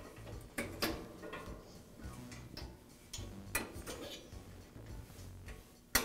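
Scattered light clicks and taps of igniter electrode wires being pressed into the wire clips along a gas grill's burners, with a sharper click just before the end.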